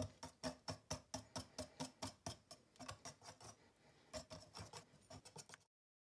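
Wire whisk beating eggs into a thick batter in a clay bowl, its wires clicking against the bowl about four or five times a second. The strokes pause briefly past the middle, pick up again, then stop abruptly near the end.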